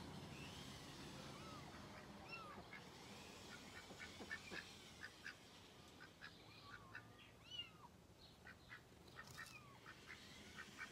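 Faint, soft calls of ducks: many short quiet quacks and chirps, coming thick and fast in the second half.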